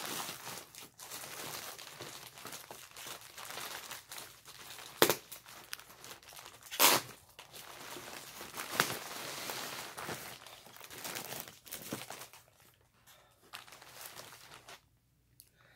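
Plastic mailer and an inflatable air-column bubble bag crinkling and rustling as they are handled and pulled apart, with three sharp, louder crackles or tears a couple of seconds apart in the middle; the handling grows quieter near the end.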